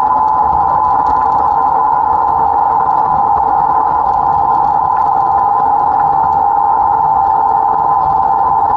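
Class 07 Ruston & Hornsby diesel shunter running steadily while hauling its train, heard at close range from the front of the loco, with a steady high whine over the engine noise.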